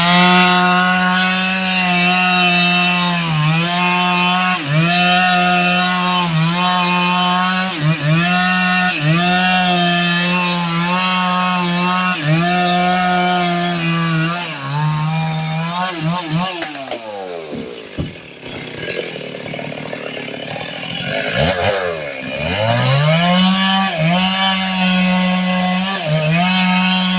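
Two-stroke chainsaw cutting wood at high revs, its engine pitch dipping briefly every second or so as the chain bites. About two-thirds of the way through it drops to idle for a few seconds, then revs back up and cuts again.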